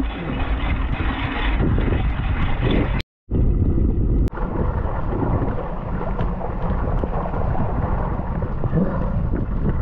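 Strong wind buffeting a camera microphone, a loud low rumble with a short drop to silence about three seconds in.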